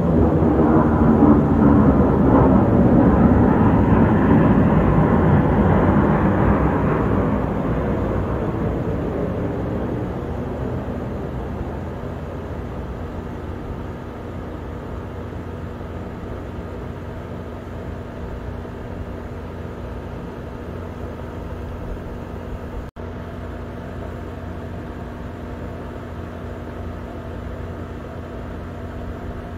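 A Southwest Airlines Boeing 737 jet airliner on approach passes overhead, its engine noise loudest in the first few seconds and falling in pitch as it moves away. It fades over about ten seconds into a steady, quieter low hum.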